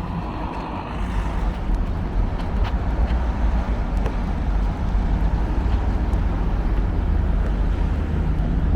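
Steady city street noise, mostly a low rumble of passing road traffic, with a few faint clicks.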